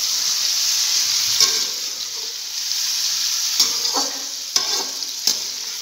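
Raw chicken pieces sizzling as they fry in hot ghee in a steel pot, stirred with a slotted metal spoon that clinks against the pot several times.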